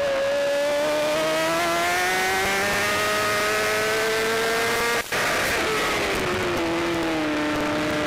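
BMW S1000RR race bike's inline-four engine heard onboard, pulling hard with pitch rising for about five seconds, a brief cut in the sound about five seconds in, then the pitch falling as the bike slows. Steady wind rush runs underneath.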